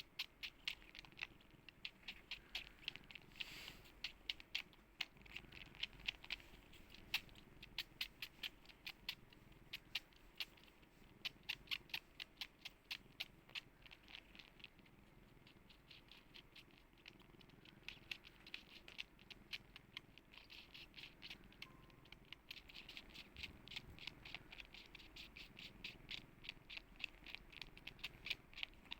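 A cat licking: a steady run of small, quick clicks, about three to four a second, thinning out briefly partway through.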